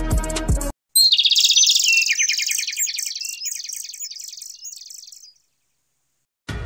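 Background music cuts off, and a rapid trill of bird-like chirps follows, loudest at its start, falling in pitch and fading away over about four seconds. After a short silence the music returns near the end.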